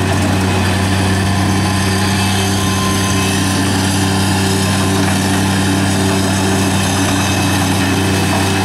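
Bobcat MT-55 mini track loader's engine running at a steady speed as the machine is driven on its tracks.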